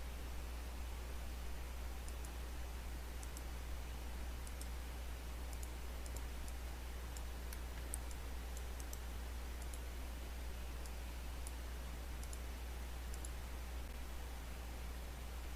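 Computer mouse clicking now and then, scattered single clicks and some quick double clicks, over a steady low hum and faint hiss from the recording.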